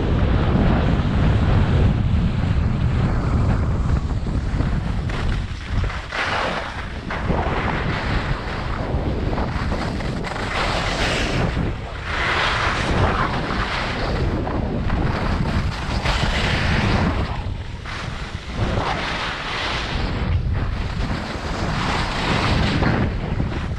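Skis sliding and carving over packed snow at speed, a hiss that swells and fades every few seconds with the turns. Wind buffets the camera microphone throughout, heaviest in the first few seconds.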